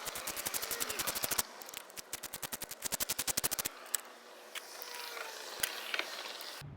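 Hand ratchet clicking in two quick runs, about fifteen clicks a second, followed by a few single clicks and knocks of tools.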